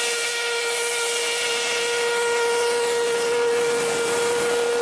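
Steam locomotive whistle blowing one long, steady note, with a hiss of steam over it.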